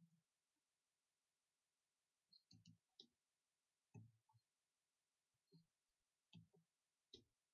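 Faint, scattered keystrokes on a computer keyboard: short clicks, singly or a few in quick succession, with pauses between.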